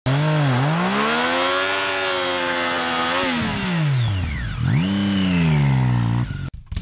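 2014 Triumph Street Triple R's 675 cc inline-three engine revving: the pitch shoots up, holds high for a couple of seconds and falls. It rises again as the motorcycle pulls away, then the sound cuts off abruptly near the end.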